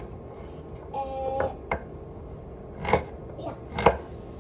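Kitchen knife chopping baby carrots on a wooden countertop: about four separate sharp cuts in the second half, each a knock of the blade through the carrot into the wood.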